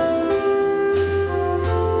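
Live worship-song performance by a choir with a band: held chords over keyboard and a drum beat that strikes about every two-thirds of a second.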